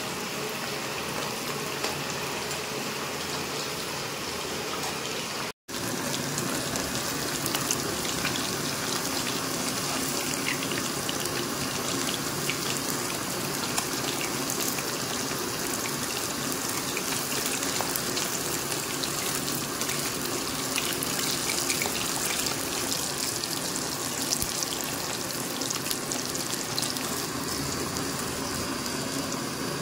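Pieces of masala-coated catla fish frying in oil: a steady sizzle with fine crackling. The sound drops out for an instant about five and a half seconds in.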